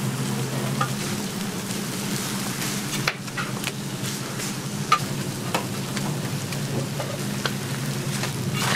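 Slices of Spam frying in oil on a steel griddle: a steady sizzle with scattered crackles and pops.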